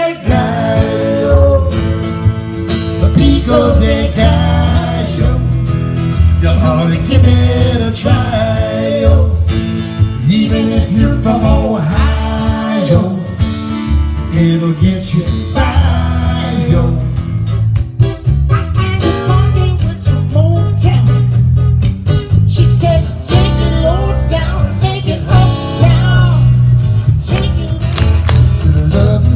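Live acoustic band playing a country-flavoured song: strummed acoustic guitar over a plucked upright bass, with a man singing.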